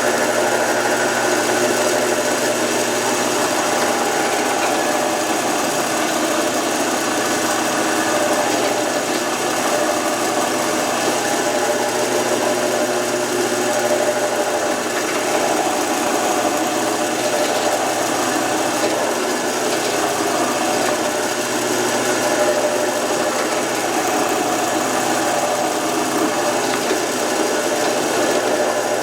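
Woodworking power tool running steadily.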